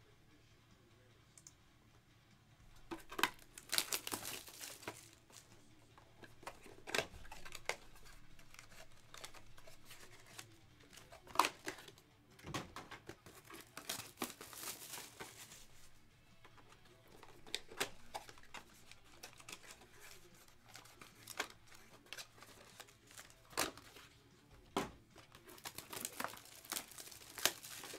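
Plastic shrink wrap being torn and crinkled off a sealed box of trading cards: irregular crackling and short tearing rasps that start about three seconds in.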